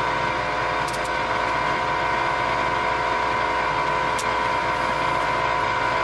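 Handheld powder-coating gun spraying powder on compressed air: a steady hiss with an even, high whine.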